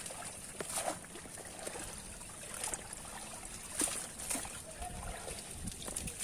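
Shallow muddy water splashing and trickling as hands scoop inside a net and lift it, with scattered small splashes and drips.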